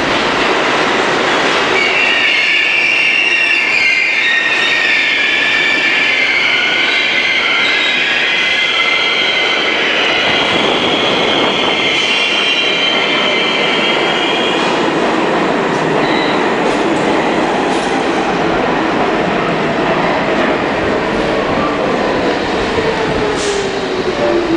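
New York City Subway train pulling into an underground station: a loud, steady rumble of wheels on rail with high-pitched wheel squeal through the first half, then a falling whine as the train slows to a stop.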